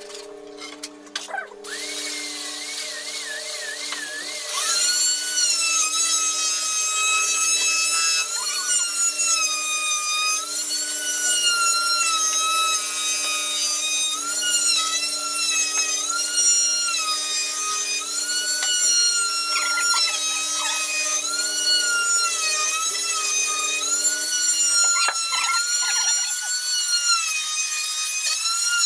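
Handheld electric power tool cutting timber: a high motor whine that starts about four seconds in and dips in pitch every couple of seconds as it bites into the wood.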